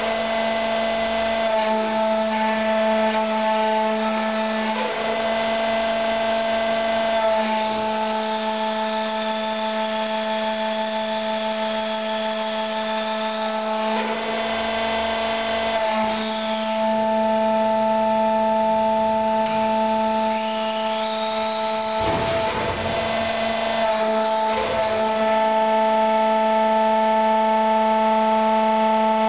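Drive machinery of a floor-mounted lip-axis ladle pouring unit running as the ladle tilts: a steady hum of several constant tones, with a higher whine that glides up and down a few times.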